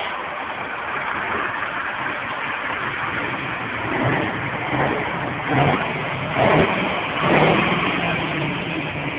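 Heavy lorry diesel engines running, with three louder surges in engine sound past the middle, over a steady rushing background.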